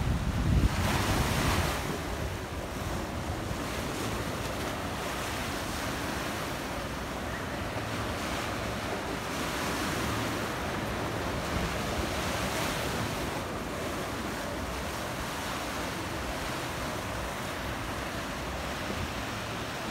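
Surf washing steadily over rocks below, rising and falling gently in swells, with wind buffeting the microphone in a louder gust during the first two seconds.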